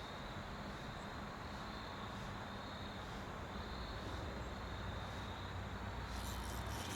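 Steady rush of shallow moving creek water, an even hiss with no distinct events.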